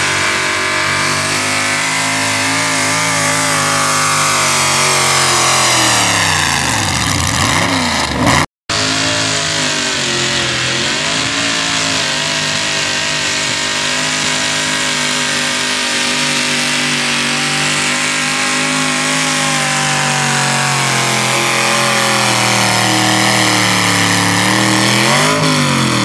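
Small pickup truck engines running at high revs under load, each pulling a weight sled. The first engine's pitch drops away about eight seconds in, and the sound breaks off briefly. A second truck, a Chevrolet S-10 with exhaust stacks, then runs steadily at high revs, its revs falling and rising again near the end.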